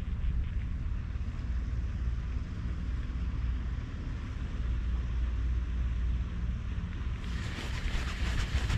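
Wind buffeting the microphone, a steady low rumble. Near the end a rapid rough rasping noise comes in and lasts a couple of seconds.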